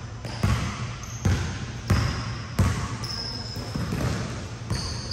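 Basketball bouncing on a court floor: four sharp thumps, a little under a second apart, in the first three seconds.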